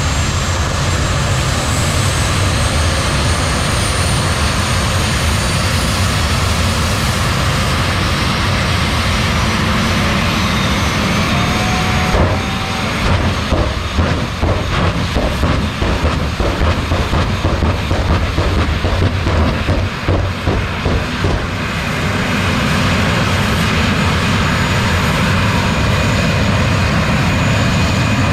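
Jet car's jet engine running at high power: a steady sound with a high turbine whine. For about ten seconds in the middle it breaks into rapid crackling pops.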